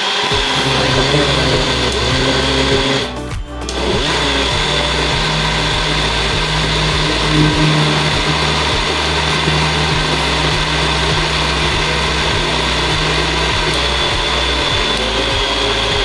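Allwyn electric mixer grinder running steadily at speed, blending bananas and milk into a banana shake.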